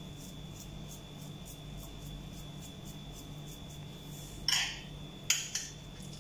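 A metal spoon scraping and clinking against a small frying pan as it scoops chicken filling: one scrape about four and a half seconds in, then two quick clinks a second later, over a faint steady hum.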